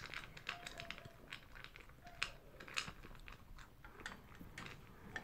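Toy poodle eating dry kibble from a plastic bowl: a faint, quick, irregular run of small crunches and clicks.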